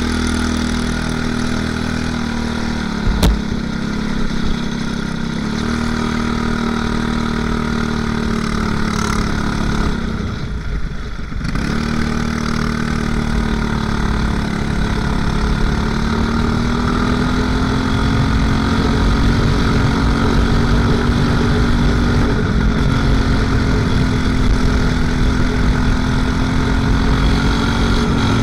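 Racing kart engine running close up, a steady high engine note that holds its pitch with little change. There is one sharp click about three seconds in, a brief drop in the sound around ten to eleven seconds, and the pitch creeps up a little around sixteen seconds.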